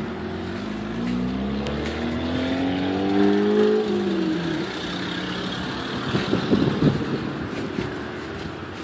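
A motor vehicle driving past on the street, its engine note rising for a few seconds and then dropping away about four and a half seconds in. A short spell of scuffing and crackling follows about six to seven seconds in.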